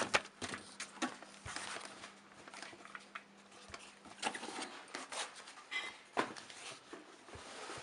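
Packaging being handled as a car radio is unpacked from its box: scattered rustling, crinkling and light clicks and taps, with a brief squeak a little before six seconds in.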